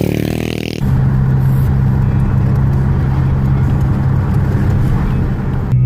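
Car driving on a road, heard from inside the cabin: a steady low engine hum with road noise. In the first second there is a brief, different motor sound, before a cut to the car.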